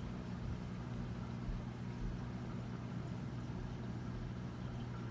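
Reef aquarium pumps running: a steady low hum with a faint haze of water noise.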